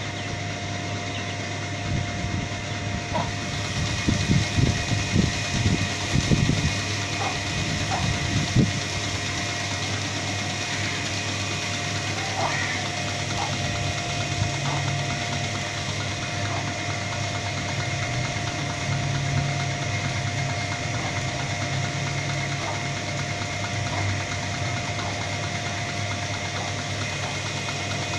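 Steady machine drone with a constant whine, like a motor running. A patch of louder low rumbles comes through about four to nine seconds in.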